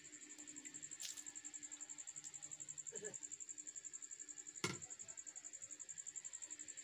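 An insect trilling steadily as a high, rapidly pulsing tone. A sharp click about four and a half seconds in is the loudest sound, with a fainter click about a second in.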